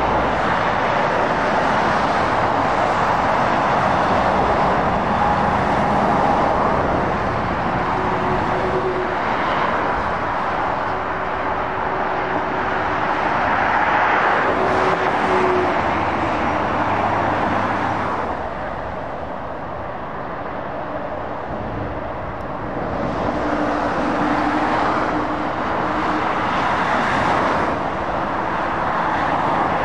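Road traffic on a dual carriageway: a steady stream of heavy lorries and cars passing, tyre noise and diesel engines swelling and fading as each goes by. There is a quieter lull about two-thirds of the way through before the next vehicles arrive.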